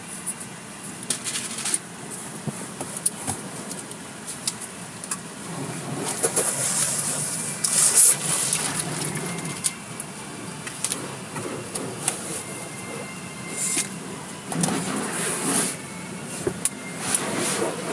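Automatic car wash heard from inside the car's cabin: water spraying and soft-cloth wash strips slapping and swishing over the body and windshield, with many small knocks. It grows louder in spells about six seconds in and again near the end.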